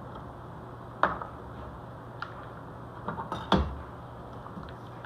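A few sharp knocks and clatters of a knife and cauliflower being handled on a kitchen cutting board, one about a second in and a cluster around three and a half seconds, the last the loudest. A low steady hum runs underneath.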